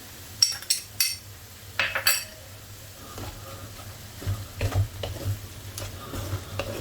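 A spoon stirring mussels in tomato sauce in a pot: several sharp clinks against the pot and shells in the first two seconds, then softer stirring over a light sizzle.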